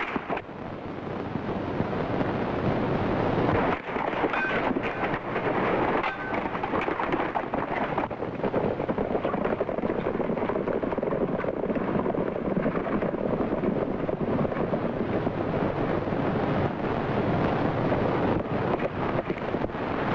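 Many horses galloping, a steady dense rumble of hooves.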